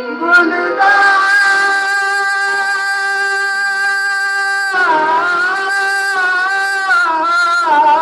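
Live Hindi patriotic song: singers with harmonium accompaniment hold one long steady note for about four seconds, then the melody moves on with wavering, ornamented notes.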